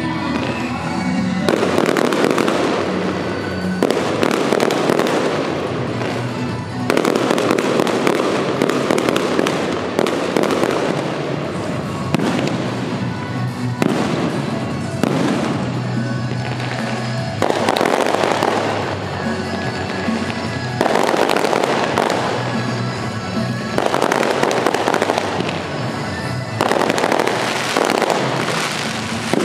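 Aerial fireworks shells bursting overhead, a new loud burst every two to four seconds, with music playing underneath.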